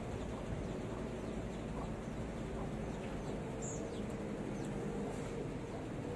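Quiet outdoor background with faint bird chirps now and then. A faint steady hum comes in about three seconds in.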